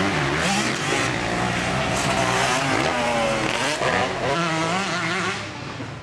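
Yamaha YZ125 two-stroke single-cylinder motocross engine revving hard under throttle, its pitch rising and falling again and again as the rider works through the gears. The engine note drops away near the end.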